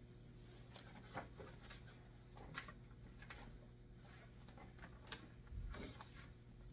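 Near silence over a low steady room hum. A few faint rustles and light clicks from a person moving and handling something close by are scattered through it.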